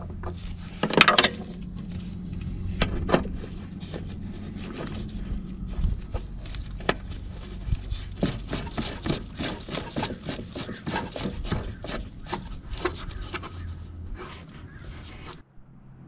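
Hand-handling noise from fitting wiring behind a Mercedes W123 front turn signal housing: many short plastic clicks, scrapes and rubs, loudest in a cluster about a second in and densest from about halfway through. A steady low hum runs underneath.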